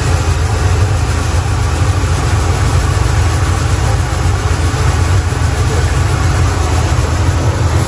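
Coin-operated rice milling machine running steadily with a low motor hum, milling unpolished brown rice as it drains from the hopper.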